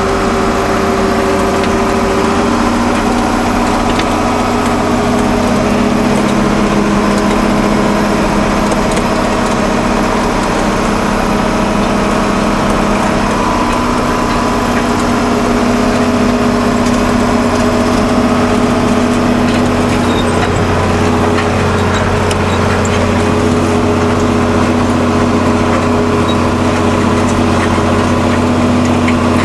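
John Deere tractor engine running steadily under work, with a constant pitch.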